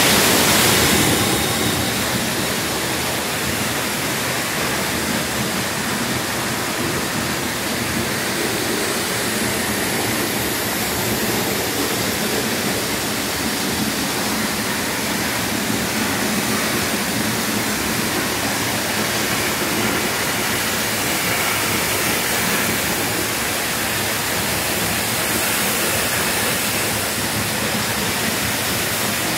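Tamanawas Falls pouring down in a steady, unbroken rush of falling water, heard up close from the rock alcove behind the falling curtain. It is a little louder in the first second or two.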